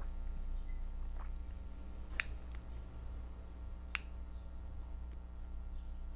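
Lighter's ignition clicking: two sharp clicks about two seconds in, then a louder click about four seconds in as the flame catches.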